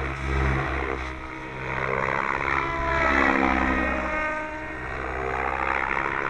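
Goblin 700 radio-controlled helicopter in flight, its rotor blades and drive making a pitched drone that bends up and down as it manoeuvres, loudest about three seconds in.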